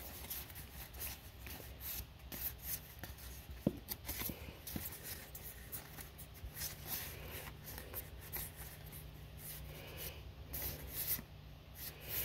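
Magic: The Gathering cards sliding and rubbing against each other as a stack is flipped through in the hands, with faint rustles and light clicks.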